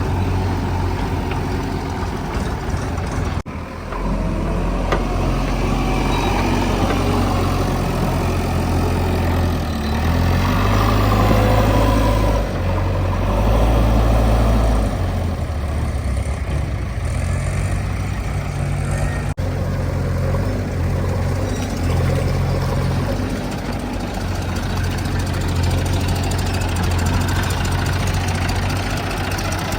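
Diesel engine of a backhoe loader running steadily. The engine note rises and swells under load for a few seconds in the middle, then settles back. The sound breaks off abruptly twice.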